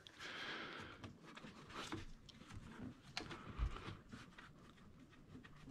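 Faint handling noises of parts being set in place: a soft rustle, a few light clicks and a dull low thump.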